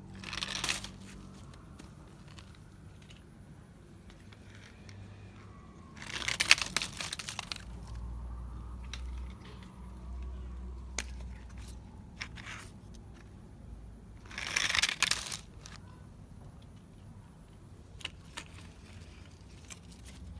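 Handling noise: three short bursts of crinkling, rustling noise several seconds apart, with scattered light clicks and taps between them.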